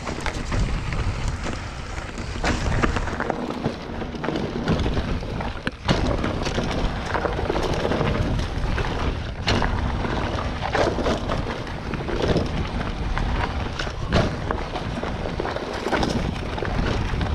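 Mountain bike being ridden over a rough dirt trail, heard through an action camera's microphone: wind buffeting the mic, with the tyres and frame rattling and knocking on bumps all through.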